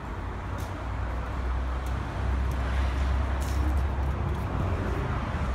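Steady low rumble of outdoor background noise that grows louder after about a second, with a few faint knocks.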